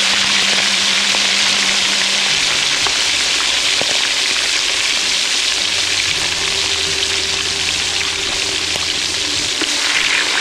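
Fish steaks frying in hot oil in a wok: a loud, steady sizzle.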